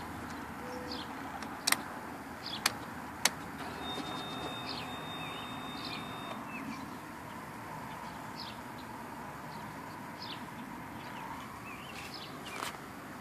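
Birds chirping over a steady outdoor background, with three sharp clicks in the first few seconds and a short high steady tone a little later.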